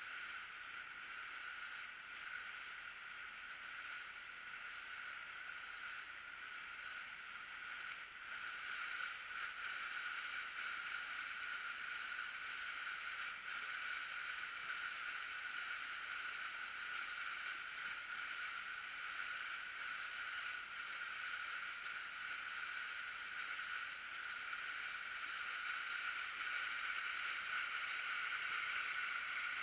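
River waterfall: a steady rushing hiss of falling water, a little louder from about eight seconds in.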